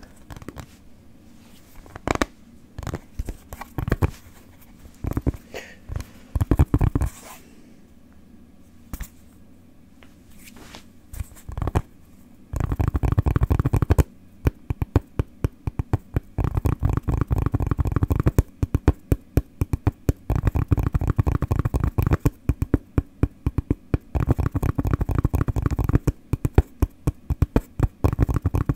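Close-miked ASMR tapping with the fingers. A few scattered taps come first, then from about halfway through a fast, almost continuous run of rhythmic tapping.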